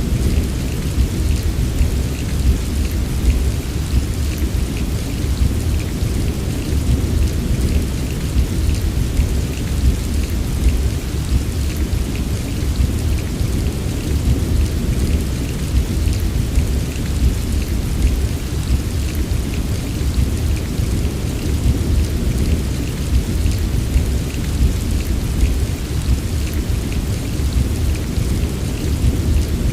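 Steady heavy rain pouring without a break, with a deep constant low rumble underneath and scattered drop ticks on top.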